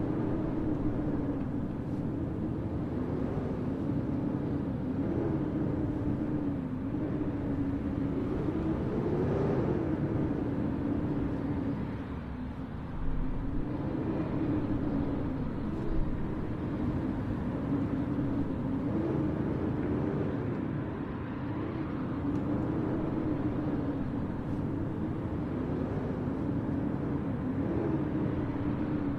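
Blizzard wind blowing steadily: a rushing noise with a low moaning tone that slowly rises and falls, and a brief knock about 16 seconds in.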